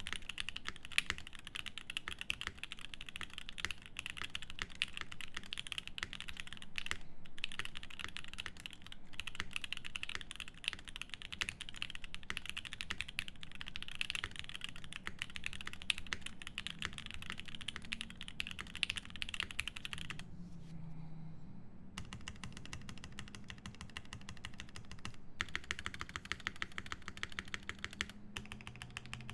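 Fast, continuous typing on a Swift65 mechanical keyboard with lubed Alpaca linear switches, a polycarbonate plate and GMK keycaps, a dense stream of keystrokes. The typing breaks off for about two seconds around twenty seconds in, then picks up again.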